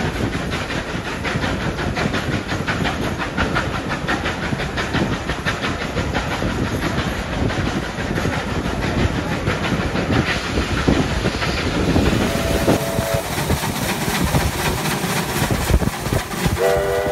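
A steam-hauled passenger train running, heard from a carriage window: steady rail and wheel noise with a rapid rhythmic beat. After a cut, a steam locomotive works past, and near the end it sounds a multi-note chime steam whistle.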